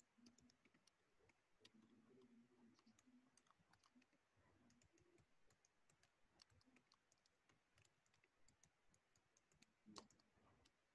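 Near silence: faint room tone with scattered faint clicks of a computer keyboard and mouse, and a slightly louder click about ten seconds in.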